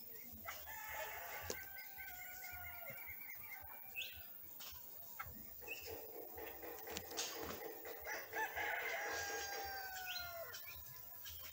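Rooster crowing twice, each crow long and drawn out, with a few short high bird chirps between and after them.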